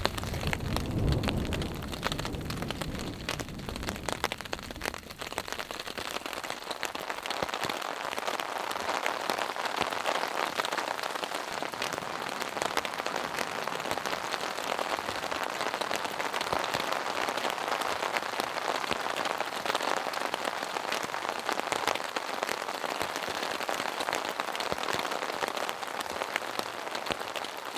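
Steady rain pattering on a camping tarp overhead, a dense, even patter of drops. A low rumble sounds in the first couple of seconds.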